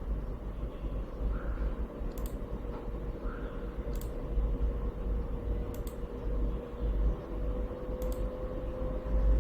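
Computer cooling fans running steadily with the CPU under a full-load FPU stress test: a soft hum with a thin tone whose pitch creeps slightly higher. A few faint clicks sound about every two seconds over a low rumble.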